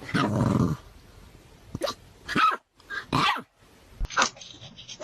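Dog growling and barking: a low growl right at the start, then several short, separate barks over the next few seconds.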